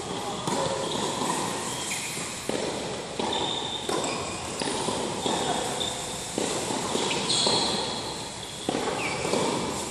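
Tennis rally on an indoor court: rackets striking the ball and the ball bouncing, a sharp hit every second or so, echoing around the large hall.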